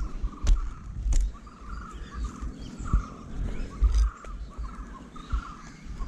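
A climber going up a tree trunk: irregular sharp knocks and low thuds, about one a second, as climbing spikes and rope gear strike the bark, with birds chirping over and over in the background.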